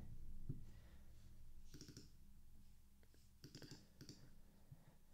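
Faint computer keyboard clicks, a few short keystrokes bunched in small clusters about two and three and a half seconds in.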